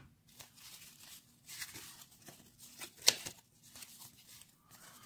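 Cardboard trading cards being handled and flipped through by hand: faint rustling and small clicks as cards slide over one another, with one sharper snap about three seconds in.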